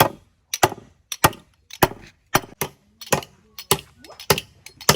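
A tool striking wood in steady repeated blows, just under two a second, some landing as quick doubles: hammering or chopping on timber.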